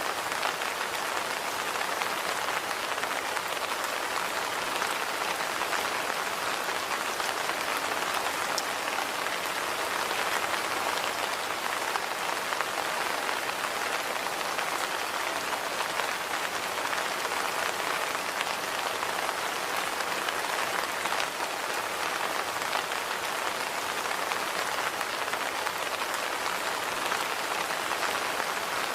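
Steady rain falling and pattering on surfaces, an even hiss full of fine drop ticks.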